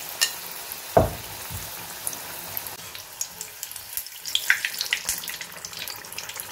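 Batter-coated green chilli (mirchi bajji) deep-frying in hot oil in a steel kadai, sizzling and crackling, the crackle growing busier from about three seconds in. A single thud about a second in is the loudest sound.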